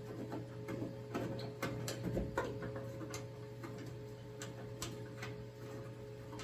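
Scattered light clicks and taps of hand tools and bolts being worked at the hood hinges, over a steady hum.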